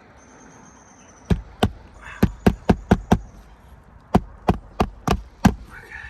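A hammer driving roofing nails into asphalt shingles: about a dozen sharp knocks in two quick runs, with a short pause between them.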